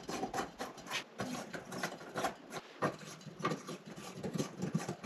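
Light bulbs being screwed into a vanity light's sockets under glass shades: a run of small, irregular clicks and scrapes.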